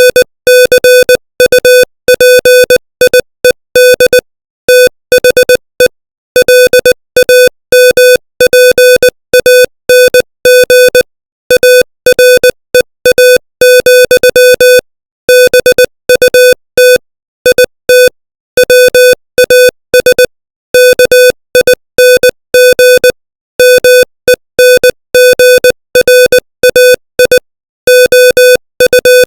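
Morse code sent at 20 words per minute: a beep of one steady pitch keyed on and off in short dits and longer dahs, with slightly longer gaps between words.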